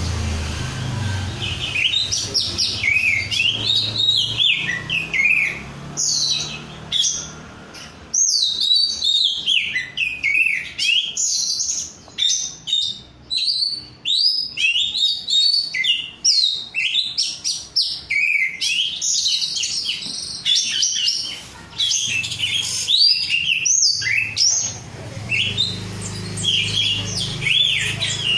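Oriental magpie-robin (kacer) singing in full, continuous song: a fast, varied stream of high chirps and whistled glides with only short breaks, starting about two seconds in.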